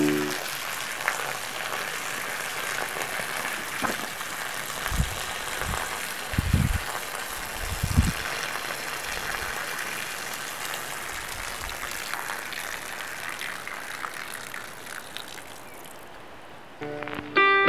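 A thin jet of water squirting from a small exhaust-duct test piece on a gravity flow bench and spattering onto gravel: a steady hiss that slowly weakens and dies away about sixteen seconds in, as the reservoir drains empty. A few low thumps come in the middle.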